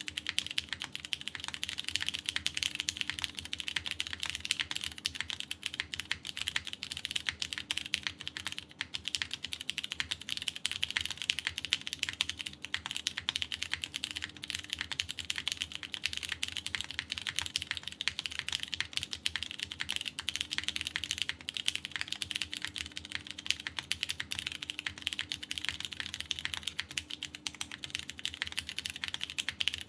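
Steady, continuous typing on a KBDfans Tofu TKL mechanical keyboard, top-mounted with a polycarbonate plate, GMK keycaps and lubed Cherry MX Purple tactile switches: a dense stream of keystroke clacks.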